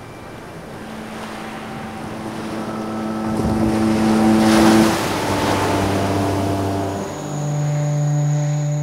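Ocean surf rushing, swelling to a breaking wave about halfway through and then easing off. Underneath runs ambient music of long held notes that shift to new chords a few times.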